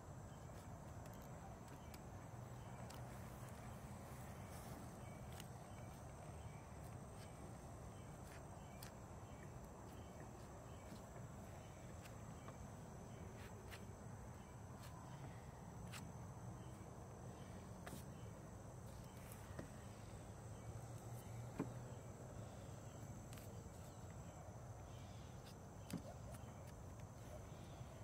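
Faint outdoor ambience: insects trilling steadily at a high pitch over a low hum, with scattered faint clicks and two sharper ticks, one about three-quarters of the way through and one near the end.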